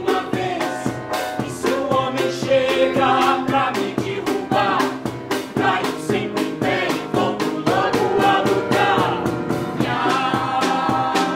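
A musical-theatre song: several voices singing together over a band backing with a steady beat.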